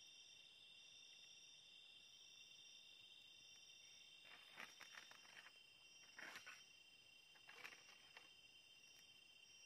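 Faint night chorus of insects trilling steadily at a high pitch, one part pulsing on and off about once a second. A small campfire crackles and pops in three short spells, about four, six and seven and a half seconds in.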